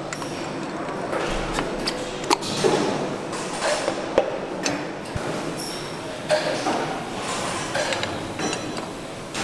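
Pistons being handled and pushed into metal fitting sleeves on a V8 engine block: several sharp metal clinks and knocks, the loudest about two and four seconds in, over steady workshop noise.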